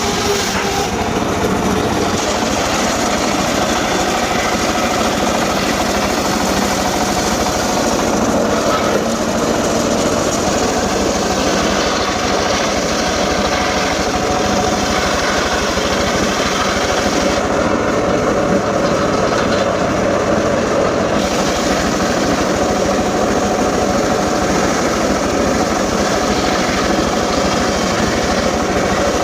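Engine-powered saw running steadily and evenly.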